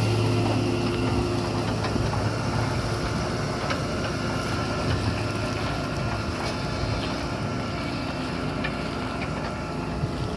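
Tractor engine running under load while pulling a subsoiler through stubble soil: a steady low drone that slowly fades as the tractor moves away.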